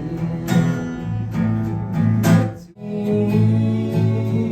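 Live rock'n'roll band playing an instrumental passage. A little past halfway the music stops for a moment and the band comes straight back in, a change to the next song of the medley.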